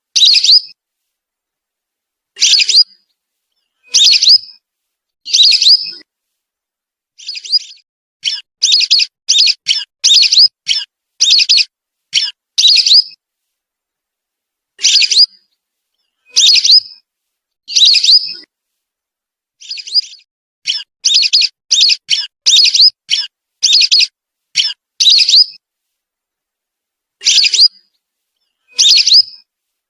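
Whistling duck (belibis) lure recording: short, high whistled calls, sometimes single and sometimes in quick runs of several notes, separated by gaps of complete silence.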